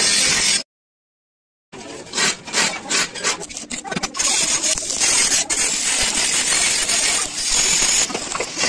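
A steady rasping noise cuts off abruptly into a second of dead silence. Then come scattered clinks and scrapes of cut steel angle-iron pieces being handled and fitted together, followed by a steady hissing noise as the corner joint is arc welded.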